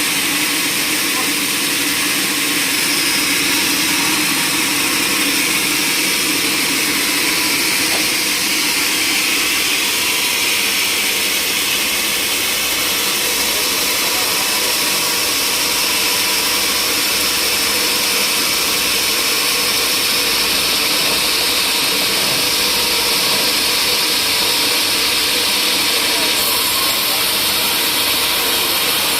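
Sawmill machinery running steadily: a continuous loud mechanical noise with a steady hum beneath it and no breaks.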